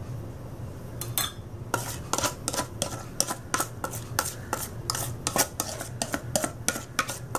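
A utensil scraping and tapping cake batter out of a mixing bowl into a tube cake pan: quick, irregular clinks and scrapes against the bowl, starting a little under two seconds in.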